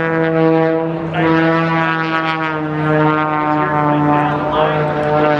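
Propeller-driven aerobatic airplane, likely the Edge 540, running at high power as it flies past, its engine-and-propeller drone steady and loud and slowly falling in pitch.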